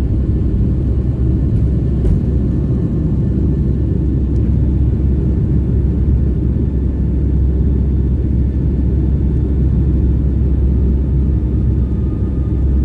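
Airliner cabin noise, heard from inside the cabin: the jet engines and airflow make a steady, deep rumble that holds an even level.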